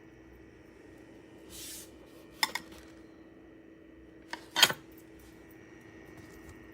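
A few sharp clinks of hard objects, one about two and a half seconds in and a pair near four and a half seconds, the last the loudest, over a steady hum. A short hiss comes about a second and a half in.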